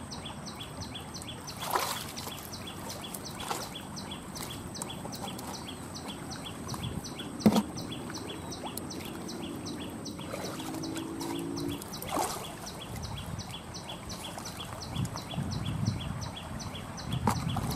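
Hands splashing in a shallow stream and an eel being handled into a plastic bucket: low sloshing with a few sharp knocks, the loudest about seven seconds in. A high, even ticking at about four a second runs under it.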